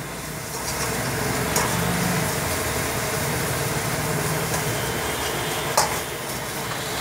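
Egg noodles sizzling in a hot wok as they are stirred and turned continuously with a steel ladle, the ladle knocking against the wok twice.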